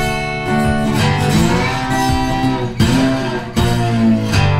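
Background music: acoustic guitar playing.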